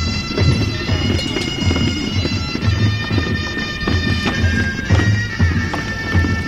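Bagpipe music: held drone notes under a moving melody, with a regular low beat.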